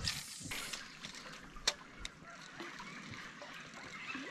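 Cast with a spinning rod: a brief swish as the line pays out, a sharp click about a second and a half later, then faint water lapping and trickling.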